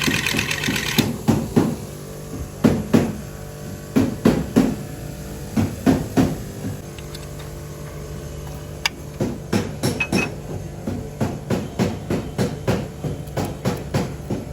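Repeated hammer blows on a car part, struck in short groups of two or three, then after a short pause a steady run of about two blows a second. A steady low hum runs underneath.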